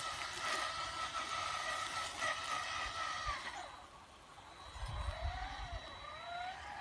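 Electric motors of a homemade robotic lawn mower whining as it drives over grass: a steady whine that stops about halfway through, then a whine that rises and falls in pitch as the robot changes speed and turns. A brief low rumble comes about five seconds in.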